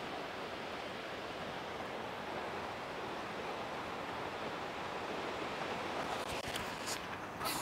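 Steady wind rushing over the microphone outdoors, with a few short faint ticks near the end.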